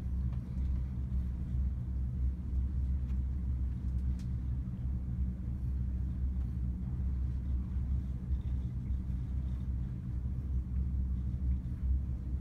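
Houseboat's engine running: a steady low drone that holds through, with a few faint clicks over it.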